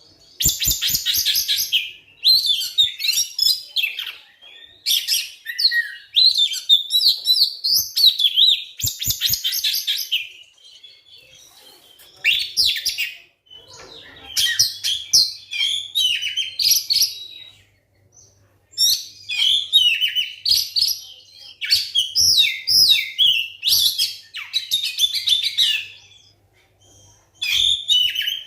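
Oriental magpie-robin (kacer) singing in repeated bursts of fast, varied whistled and chattering phrases, with short pauses between them.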